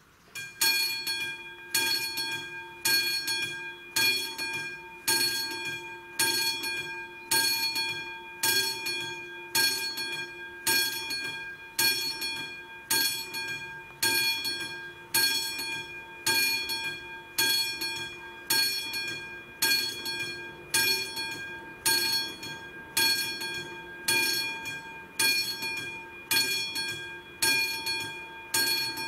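Classic mechanical level-crossing bell ringing, starting about half a second in and struck at a steady pace of roughly one stroke a second, each stroke ringing out and dying away. It is the crossing's warning that a train is approaching.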